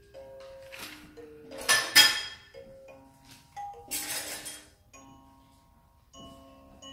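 A baby bouncer's electronic music unit playing a simple lullaby tune of single plinking notes, one after another. Three short noisy rustles break in, the loudest about two seconds in.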